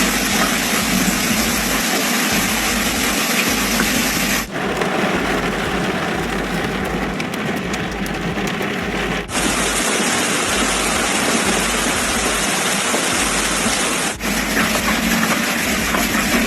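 Heavy hailstorm: a dense, steady clatter of hailstones and rain pelting down, with fine ticks of individual stones. The sound changes abruptly three times as different recordings of the storm follow one another.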